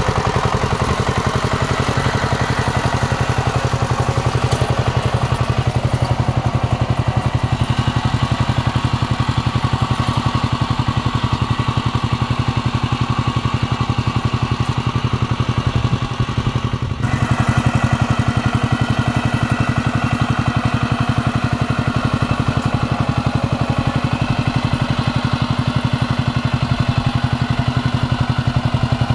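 Kamco power tiller's single-cylinder diesel engine running steadily under load while its rotary tines puddle a flooded rice paddy, with a brief dip in level a little past halfway.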